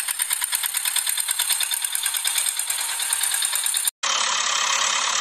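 Engine running in quick, even chugging pulses, about ten a second. Near the end it cuts off abruptly and a steadier, smoother engine drone takes over.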